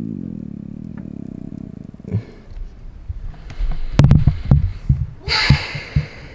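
The tail of a falling-pitch musical sound effect fades out over the first two seconds. Then, from about halfway through, come a run of dull knocks and a rustle of handling noise.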